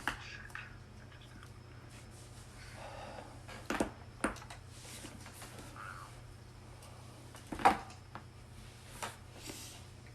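Joints cracking during a chiropractic adjustment: a series of short, sharp pops, one near the start, two around four seconds in, the loudest about three quarters of the way through, and another near the end, over a steady low hum.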